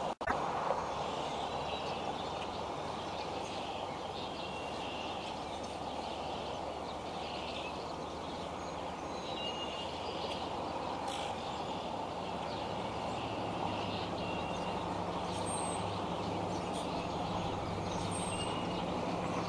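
Steady outdoor background noise with short, high bird chirps scattered through it, and a low engine-like hum coming in about two-thirds of the way through.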